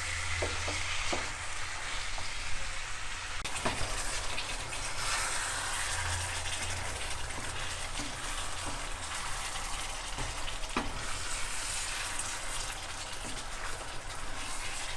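Chicken pieces frying in spiced curry masala in a pan, sizzling steadily, with a few sharp clicks of a spoon stirring against the pan.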